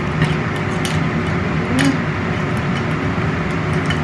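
Clam shells clicking and clattering as they are pushed out of a metal wok onto a plate with wooden chopsticks, a few sharp clicks over a steady mechanical hum.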